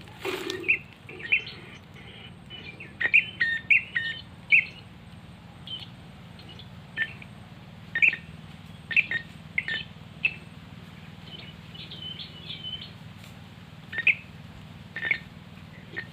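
Prenjak coki (forest prenjak) giving short, sharp chirping call notes at irregular intervals, in quick clusters over the first few seconds and then more spaced out, over a low steady hum.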